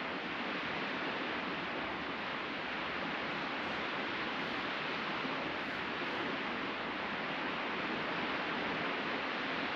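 Steady wash of sea surf breaking on the beach, an even hiss with no distinct crashes.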